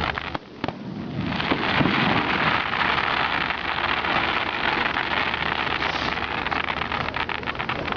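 Fireworks crackling: after a brief lull, a dense, continuous crackle of many small sharp pops sets in about a second in and keeps going.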